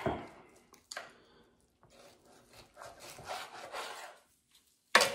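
Long slicing knife sawing back and forth through a rack of cooked pork spareribs on a plastic cutting board, a run of scratchy strokes through the meat and crust. There is a sharp knock near the end.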